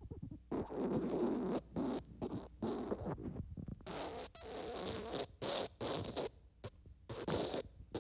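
Wet fart sound effect: a long run of squishy, sputtering bursts broken by short gaps.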